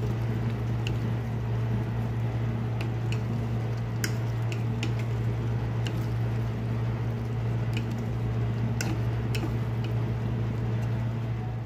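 Shrimp and vegetables simmering in a thick sauce in a frying pan, bubbling and popping with scattered sharp clicks, while a wooden spatula stirs them. A steady low hum runs underneath.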